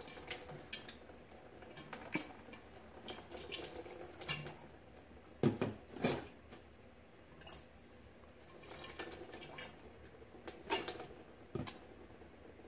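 Rinse water squirted from a plastic wash bottle into a glass separatory funnel, trickling and dripping through its open stopcock into a plastic basin, with irregular light clicks and knocks of glass and plastic being handled; a couple of louder knocks come about halfway through.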